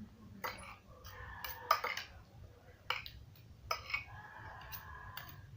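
Metal cutlery clinking and scraping against a plate of fried noodles, in several separate knocks. A drawn-out pitched call sounds in the background twice, about a second in and again about four seconds in.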